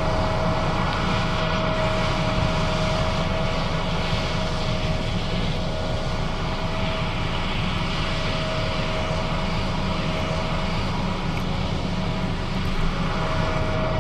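John Deere S660 combine running steadily at work in soybeans: a continuous engine drone with a steady whine over it.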